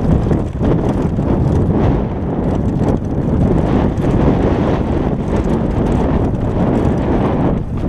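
Wind buffeting the microphone of a camera on a downhill mountain bike at speed, over the rumble of knobby tyres on a dirt trail and frequent light rattles from the bike.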